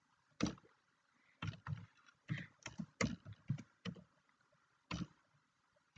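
Typing on a computer keyboard: about a dozen separate keystrokes at an uneven pace, with a pause of about a second before one last keystroke near the end.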